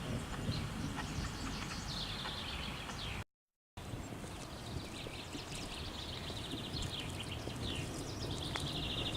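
Small birds singing, with repeated chirps, rapid trills and short falling notes, over a steady low outdoor rumble. The sound cuts out completely for about half a second a little over three seconds in.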